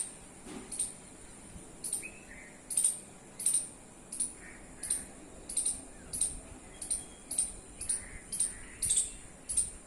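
Pet parrot giving short, high-pitched chirps, repeated steadily about every half second, with a few softer, lower calls in between.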